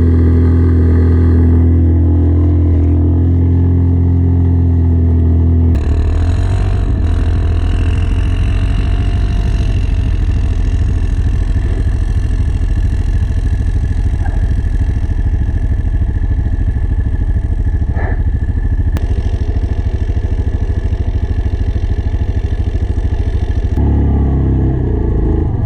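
Yamaha Kodiak ATV's single-cylinder engine running under throttle. It holds a steady note for about six seconds, then turns rougher and noisier with a rapid pulsing, and a steady note returns near the end.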